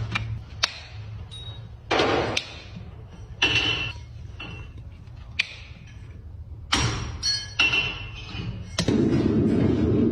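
Separate hammer blows on metal, a second or more apart, some with a short metallic ring, then a steady loud rushing noise from about nine seconds in.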